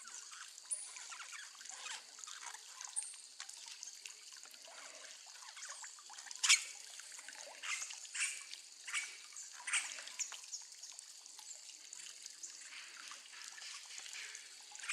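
Faint trickling water, with a handful of sharp clicks or taps between about six and ten seconds in.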